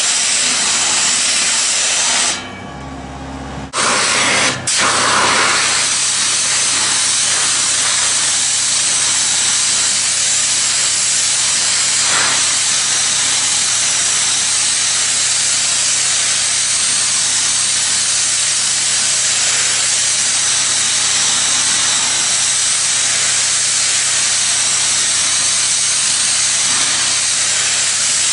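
A 500-bar high-pressure water jet blasting stainless steel pipe, a loud steady hiss over a low hum. The jet cuts out about two seconds in, starts again a second and a half later, breaks once more very briefly, then runs steadily.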